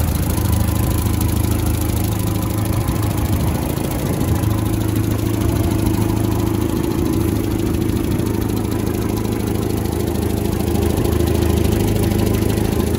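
1960 Land Rover Series II 88-inch pickup's four-cylinder petrol engine idling steadily.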